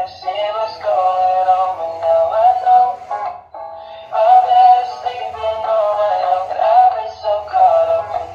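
Dancing cactus toy playing a song with synthetic-sounding singing through its built-in speaker. The song breaks off for about a second around three seconds in, then resumes.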